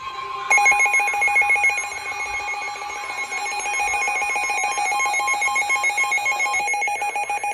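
Emergency alert attention tone from a weather radio alert: a steady, harsh electronic alarm tone with a rapid flutter, starting about half a second in.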